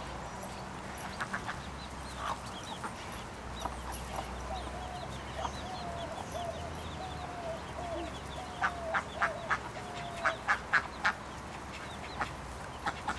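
Chickens and ducks calling as they feed together. There are faint high chick peeps early on, then a string of soft, slightly falling clucks, then a quick run of short, sharper calls about two-thirds of the way in, which are the loudest part.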